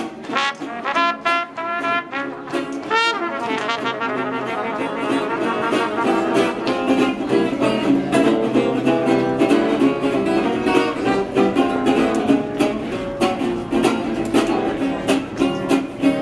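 A small band playing jazz: brass horns over a strummed rhythm guitar, with a steady beat. Separate horn notes at first, then the whole band comes in fuller and louder a few seconds in.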